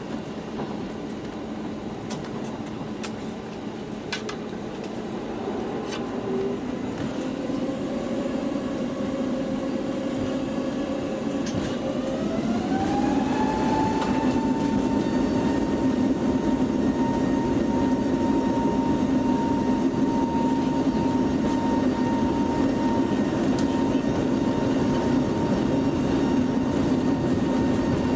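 Airbus A320neo cabin noise: a steady rumble with a few faint clicks. About twelve seconds in, an engine whine rises in pitch and then holds steady as the engines spool up, and the sound grows louder.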